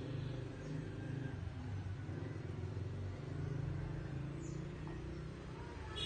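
Steady low rumble of a running motor vehicle engine, with a faint high descending bird chirp about four and a half seconds in.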